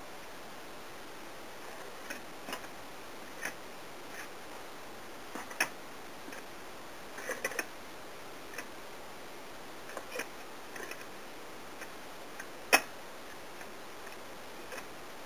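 Wire whisk clinking against the side of a stainless steel pan as it stirs melting chocolate chips: scattered, irregular light clinks, with one sharper clink near the end, over a steady faint hiss.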